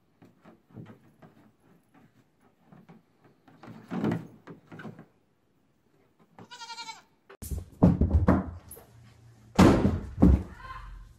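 A young goat's hooves tapping and knocking on a hollow plastic sandbox lid, then a short wavering goat bleat. After that come several heavy thuds of a person's body hitting a wooden floor, which are the loudest sounds.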